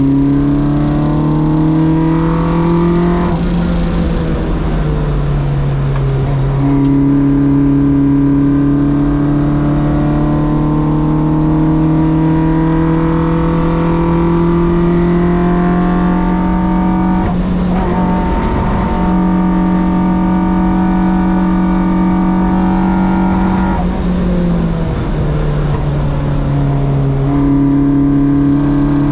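Race car engine under load on track, its pitch climbing steadily as it pulls through the gears and dropping sharply at each gear change, a few times in all.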